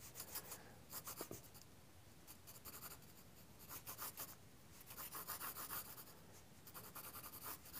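Graphite pencil drawing on sketching paper: faint scratchy strokes in several short runs as lines are sketched in.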